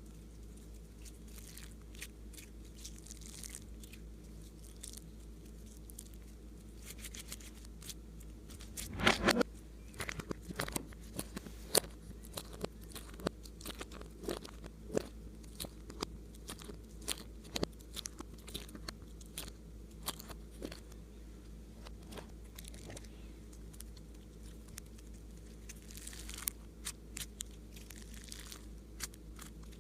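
Slime being squeezed and worked by hand, giving sticky crunchy crackles and clicks: a few faint ones at first, a loud dense cluster about nine seconds in, then many sharp scattered pops that thin out towards the end.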